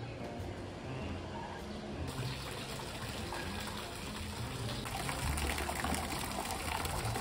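Water splashing from a tiered stone plaza fountain into its basin, a steady rush that grows louder and brighter about two seconds in and again near five seconds.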